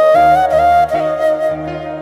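Intro music with a flute-like melody held over a steady accompaniment.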